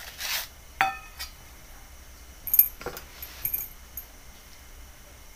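Stainless-steel plates clinking, with a short scrape at the start, one ringing clink just under a second in and a cluster of sharp taps and clinks a little later, the loudest about two and a half seconds in, as roasted brinjals are handled and peeled on them.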